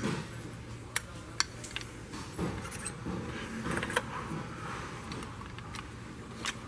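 Metal hand tools clinking: a long-shank cylinder head bolt bit and its bar being lifted off a head bolt and handled over the engine. A few separate sharp clicks and taps over a low steady hum.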